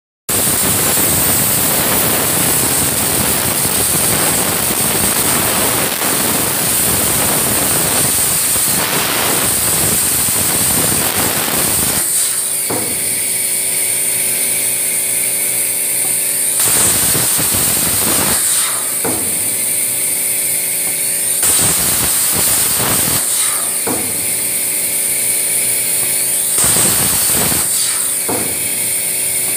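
CNC plasma cutter with a 60 A plasma power source cutting thin aluminium sheet: a loud, steady rushing hiss of the arc and compressed air. About twelve seconds in, it drops to a quieter high hiss over a steady machine hum, broken every few seconds by short loud rushing bursts as the arc fires again for short cuts.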